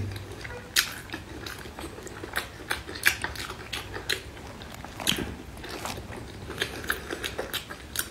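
A person chewing and biting food close to the microphone, with irregular sharp, crisp clicks and wet mouth sounds, several a second.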